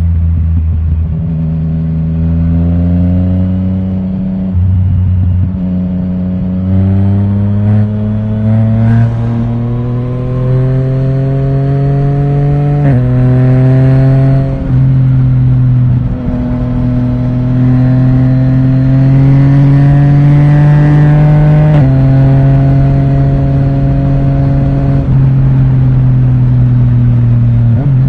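Yamaha Tracer 900 GT's inline three-cylinder engine through an Akrapovic titanium full exhaust with the dB killer removed, heard from the rider's seat while riding. The engine pitch climbs under acceleration and drops at each of three upshifts, then holds at a steady cruise near the end.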